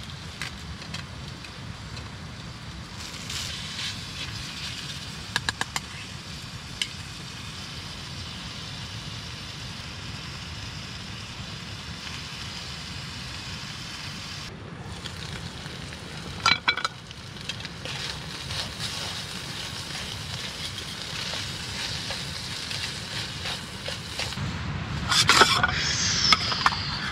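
Minced meat sizzling steadily in a frying pan on a gas canister stove, with a few sharp clinks of utensils against the pan. Louder clattering near the end as the pan is lifted and handled.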